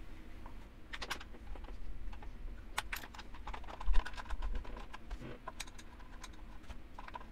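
Small metal clicks and taps of a screwdriver working the fore-end screw out of a Remington 742 rifle, then the loosened screw and parts being handled in the fingers. There are irregular quick clicks throughout and a dull bump about four seconds in, which is the loudest sound.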